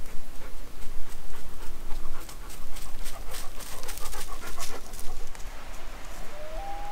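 Dog panting in quick breaths, loudest through the middle, as it trots along. Near the end a short tone rises in pitch and then holds steady.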